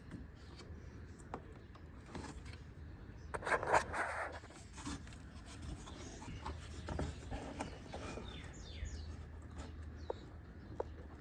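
Small clicks and a short scraping rattle of a plastic electrical connector being worked by hand as it is pulled loose from the Prius inverter coolant pump, with the loudest scrape about three and a half seconds in; the connector is stuck.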